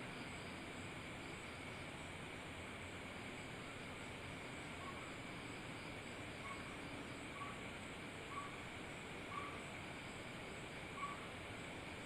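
Steady night ambience of insects chirping, with a series of six short faint calls from a small animal, about one a second, getting a little louder toward the end.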